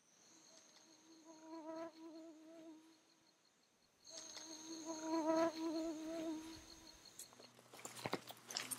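A flying insect buzzing in two spells of about three seconds each, its pitch wavering, over a steady high insect trill. Near the end, footsteps crunch on dry pine needles.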